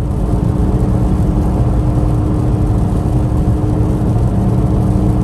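Ford Bronco driving on the road, heard from inside the cabin: a steady rumble of road and engine noise with a faint steady hum. The soft top, lined with an insulating headliner, is not flapping.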